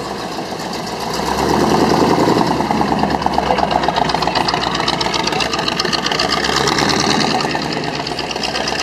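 Early-1970s Ford Mustang fastback's engine running, getting louder about a second in as the car pulls away, with an even pulsing exhaust note.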